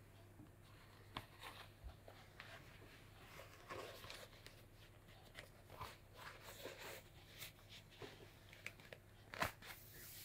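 Faint rustling of canvas sneakers and bedsheet as feet shift and hands handle the laces, with scattered small clicks and one sharper tap about nine seconds in, over a low steady hum.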